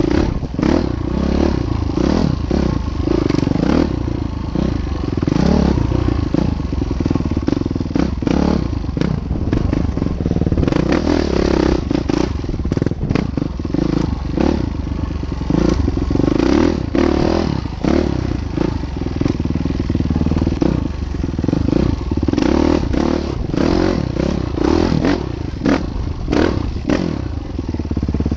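Train crossing a bridge: steady loud rumble of wheels on the rails, with frequent clanks and clatter from the wheels and cars.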